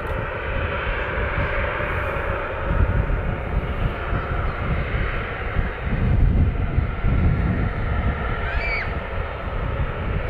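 Jet airliner engine noise: a steady, loud roar with a deep rumble that grows stronger about six seconds in.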